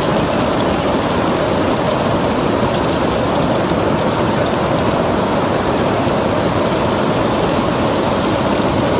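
Heavy rain mixed with small hailstones pelting wet marble paving: a loud, dense, steady patter.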